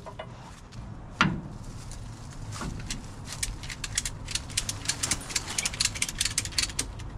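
One sharp knock about a second in, then from about three seconds in a run of rapid, irregular clicks from a ratchet strap's ratchet buckle being worked to tension a strap around the transmission.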